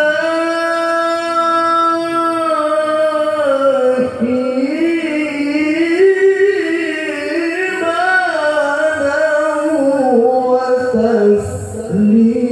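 A male qari reciting the Quran in the melodic tilawah style. He holds one long steady note for about four seconds, then moves into wavering, ornamented melodic phrases.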